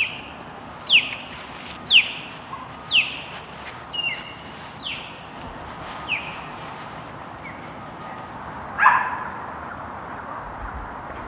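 A rushing creek runs steadily while a bird repeats a short falling chirp about once a second. A louder, harsher call comes near the end.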